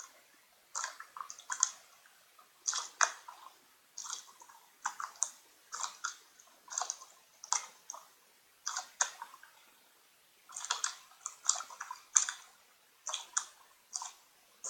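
Slime squeezed and kneaded by hand: short wet squelches and small clicking pops, coming in clusters about once a second.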